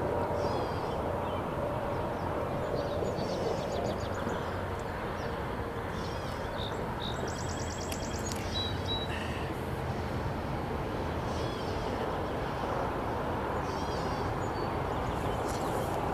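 Birds calling on and off, including a short rapid trill about midway, over a steady low background rumble.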